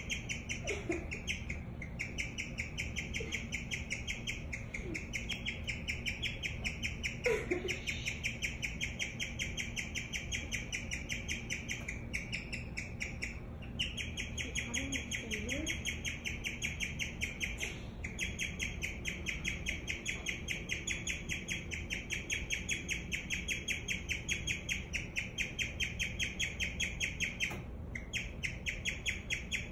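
Guinea pig chirping: a fast, steady, bird-like run of high chirps that goes on and on, broken only by a few brief pauses.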